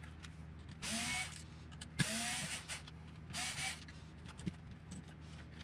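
Cordless power driver running in three short bursts, each rising in pitch as the motor spins up, backing out screws from an RC truck's chassis.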